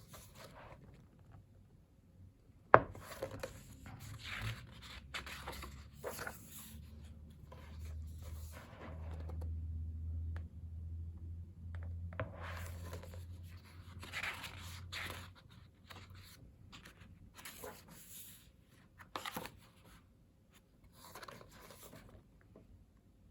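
Pages of a photobook being turned and handled: paper rustling and sliding in short spells, with a sharp tap a little under three seconds in and a low rumble for several seconds in the middle.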